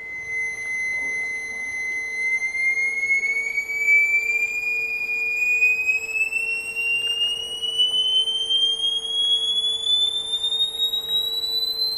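A single tone sounded by a high-voltage plasma flame acting as a speaker, driven by a modulator. It holds a steady pitch for about two seconds, then glides steadily upward in pitch as the frequency is swept toward the modulator's maximum rated frequency.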